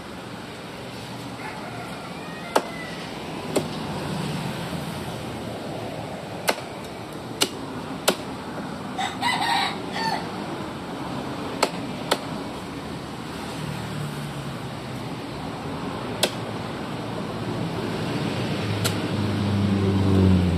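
Meat cleaver chopping a whole chicken into pieces on a wooden stump block: single sharp chops at irregular intervals, about nine in all. A chicken calls briefly about halfway through.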